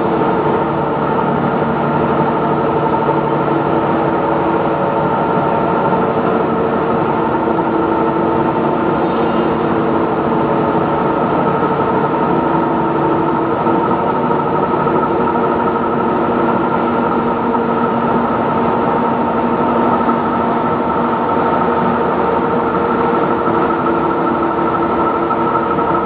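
Aluminium rod continuous casting and rolling line running in its plant: a steady machinery drone with several held tones over a broad hum from its motors, pumps and rolling stands.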